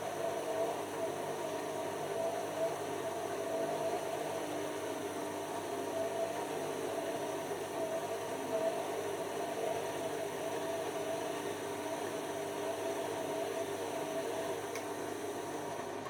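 Beko WM5100S front-loading washing machine turning its drum during a wash, the motor whirring steadily with a constant whine.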